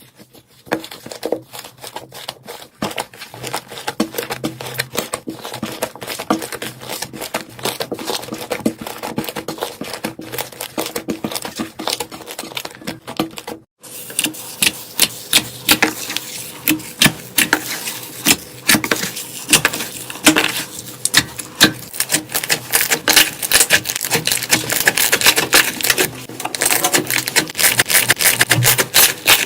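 Hands squeezing and poking slime: a dense, irregular run of crisp clicks and small pops. About fourteen seconds in the sound breaks off briefly, and a louder, crisper stretch of clicking follows.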